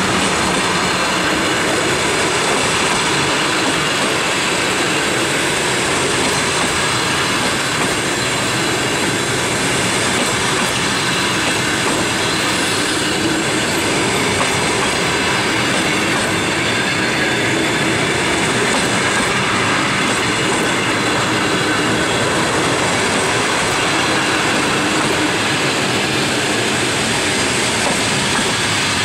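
Passenger train coaches rolling past at close range, with a steady, loud rumble of steel wheels running on the rails.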